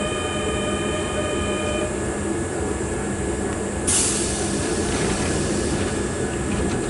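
Kintetsu 8400-series electric train standing at a station platform with a steady low hum from its equipment. A steady electronic tone sounds for about the first two seconds, then a sudden loud burst of compressed-air hiss comes about four seconds in and tails off, as the train prepares to depart.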